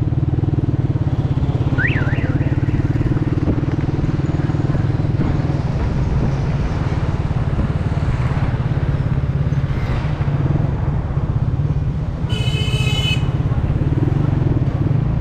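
Motorcycle engine running steadily under way, a low pulsing drone, with road and traffic noise around it. Near the end a horn sounds once for about a second.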